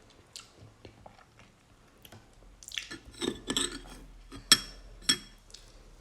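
Biting and crunchy chewing of fairly ripe mango slices, starting about halfway through, with two sharp clinks near the end.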